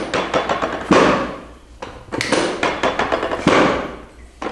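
Chiropractic treatment table's drop section dropping again and again under the practitioner's thrusts: clattering clicks and sharp thuds about once a second, each fading over most of a second.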